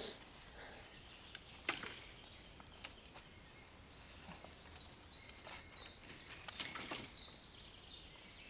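Faint rustling and a few sharp snaps of dry leaves and twigs on a forest floor as a person walks and handles sticks, with a bird giving a run of short high calls over the second half.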